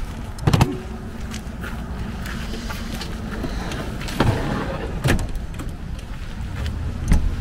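Evakool portable fridge lid thumping shut about half a second in, followed from about four seconds in by several clunks and knocks as the caravan's slide-out fridge and kitchen drawers are pushed shut.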